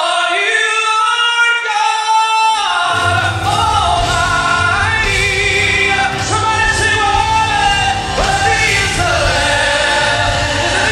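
Gospel vocal group singing, a male lead with female backing voices. A low bass accompaniment comes in under the voices about two and a half seconds in.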